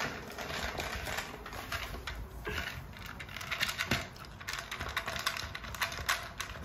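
A dog eating its dinner from a bowl: a run of irregular small clicks, crunches and taps, with a sharper knock about four seconds in.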